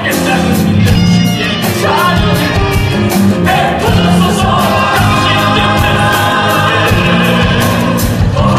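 A musical-theatre ensemble singing together in Korean, accompanied by piano and a steady drum beat.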